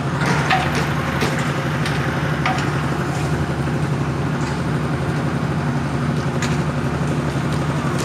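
Hydraulic static pile driver's power unit running with a steady low drone, with a few sharp clicks and knocks scattered through it.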